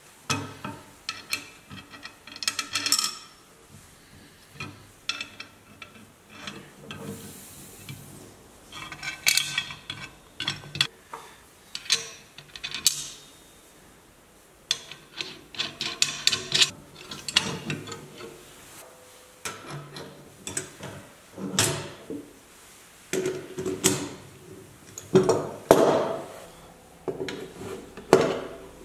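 Small metal parts handled on a wooden workbench: washers and nuts clinking, a nut threaded onto a bolt, and an adjustable wrench fitted to a nut on a zinc-plated steel suspension plate. Irregular clicks and clinks, some ringing briefly.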